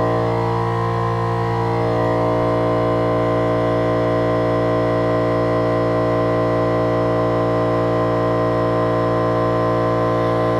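Small air compressor running steadily with an even hum, building its tank pressure back up after spray painting.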